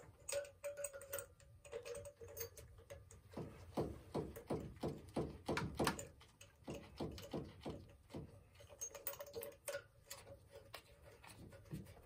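Irregular light clicks and taps of brass gauge-glass nuts, washers and fittings being handled and threaded on by gloved hands at a steam boiler's water-gauge valves. The clicks come thickest in the middle.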